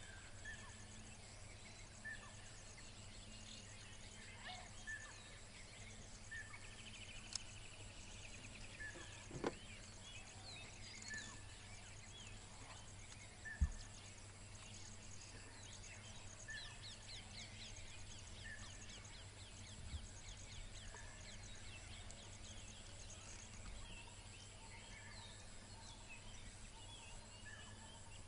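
Faint wild ambience: a bird repeating a short call about once a second, with other scattered bird chirps and a brief trill, over a high insect buzz and a low steady hum. A couple of soft thumps, one about a third of the way through and one about halfway.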